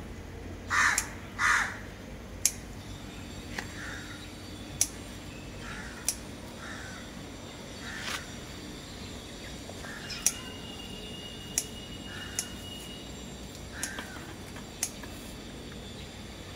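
Scissors snipping through garlic chive stalks, about nine sharp clicks spaced a second or two apart. A bird calls twice loudly about a second in, and fainter calls recur throughout.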